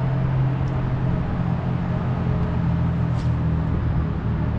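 Steady low mechanical hum that holds at the same pitch and level throughout.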